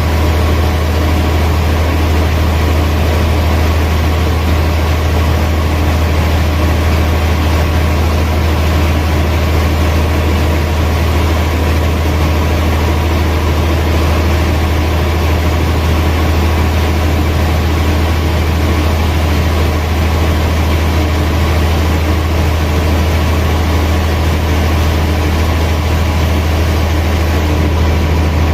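Heavy machinery, such as a sawmill's motors, running steadily with a deep, even hum.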